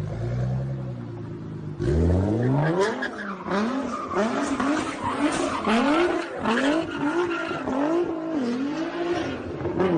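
Nissan GT-R's twin-turbo V6 idling, then revving hard about two seconds in as the car spins donuts, with tyres squealing on the tarmac. Through the spins the engine pitch rises and falls about once a second.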